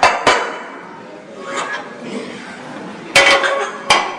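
Metal clanks of gym weights being handled: two sharp clanks at the start, and two more, about three and four seconds in, each ringing briefly.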